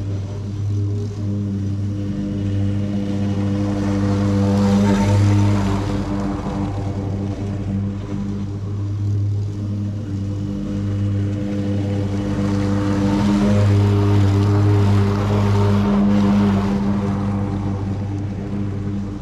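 Gas lawn mower engine running steadily at working speed while cutting grass, its hum swelling louder twice with a rush of cutting noise.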